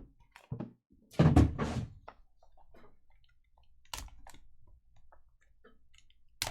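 Card boxes and packaging handled on a table: a loud thunk about a second in, then a few light clicks and taps.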